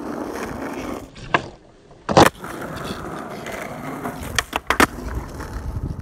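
Skateboard wheels rolling on damp asphalt, broken by a sharp pop about a second and a half in and a loud board landing just after two seconds, the loudest sound. A few more sharp clacks of the board come near the five-second mark before it rolls on.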